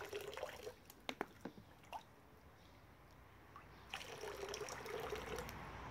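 Faint trickle of water, with a few light clicks.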